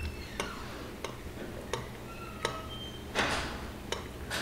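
A metal spoon tapping and clinking against a frying pan of hot sugar syrup as the syrup is spooned over a skewer of fruit to coat it for tanghulu: sharp taps every half second or so, some ringing briefly, with a short louder rush of noise about three seconds in.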